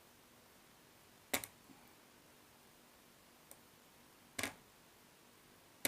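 A few short, sharp clicks and taps of a small screwdriver working against a laptop's screws and metal screen bracket, spaced a second or more apart with quiet in between.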